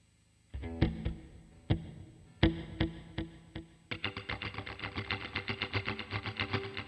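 Electric guitar played through an emulated Vox AC30 amp (STL Tones AmpHub plugin). After a brief silence come a handful of separate picked notes, then about four seconds in a fast, even run of picked notes.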